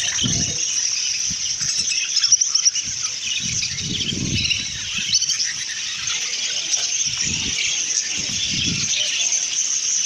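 A large crowd of budgerigars chattering and chirping together in a dense, continuous twitter, with a few short low rumbles among it.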